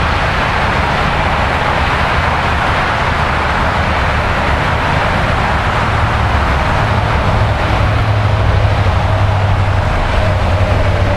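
Steady roar of interstate highway traffic, tyres and engines blending into one continuous noise. A deeper engine hum swells in about two-thirds of the way through, like a heavy vehicle passing.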